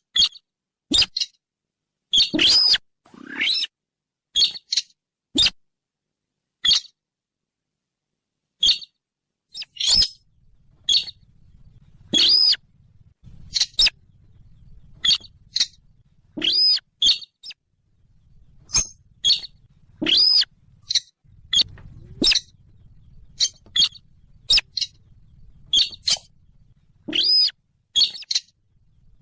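Sintar lure call: a recording of short, sharp bird calls repeated at uneven intervals, often in pairs, played to draw in sintar. A faint low hum sits under the calls from about ten seconds in.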